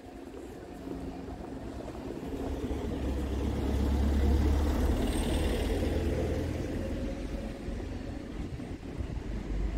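A heavy motor vehicle driving past on the street: a low engine rumble builds, is loudest about four to five seconds in, then fades away.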